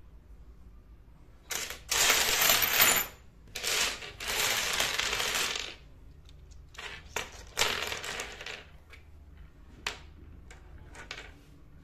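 Miniature ceramic plates and bowls clattering against one another in a heap, in two long stretches of dense clinking. After that come scattered single clicks and short clatters as small ceramic cups are set down one at a time.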